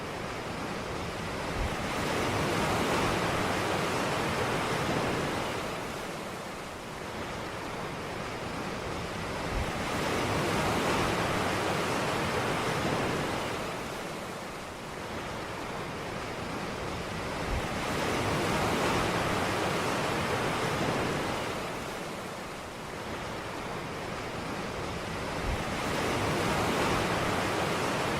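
Ocean waves washing onto a beach, the surf swelling and fading about every eight seconds, four times, each swell opening with a brief low thump.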